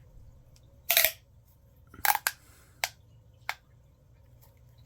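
A few sharp clicks and snaps from a small fidget toy being handled. The loudest comes about a second in, then a quick double click, then two lighter clicks.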